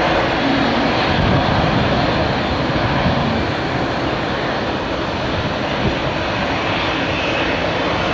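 Airbus A220-300's Pratt & Whitney PW1500G turbofans heard from behind during the landing rollout, a steady broad jet noise, with gusting wind on the microphone.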